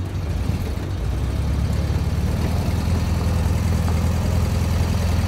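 Air-cooled flat-four engine of a vintage VW Beetle running at low speed close by: a steady low drone that grows louder over the first couple of seconds.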